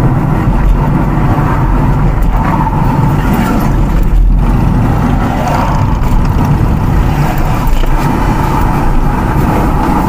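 Steady road noise of a moving car heard from inside the cabin: an even low rumble of tyres and engine.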